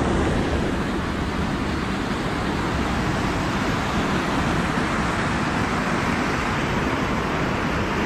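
Stream cascading over rocks in a small waterfall: a steady, unbroken rush of water.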